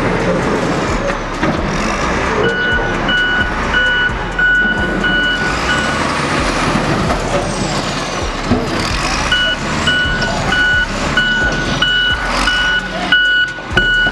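XCMG wheel loader's reversing alarm beeping in even pulses, a little under two a second, over its diesel engine running. The beeping stops for about three seconds in the middle, while the loader pushes forward into the wall, then starts again, with a few scattered knocks.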